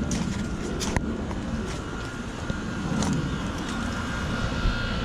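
Outdoor residential air-conditioning condenser units running in cooling mode: a steady rush of the condenser fans over a compressor hum, with a constant whine, a rumble of wind, and a few light clicks.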